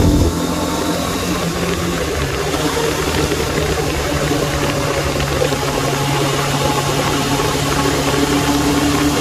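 Suzuki Bandit 600 motorcycle's inline-four engine running steadily at a low, even pitch, heard from the rider's seat. There is a brief loud jolt right at the start.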